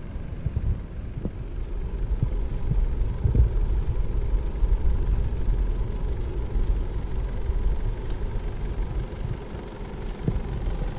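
4x4 SUV engine running low and steady as the vehicle creeps down a steep sand slope, with a few dull thumps.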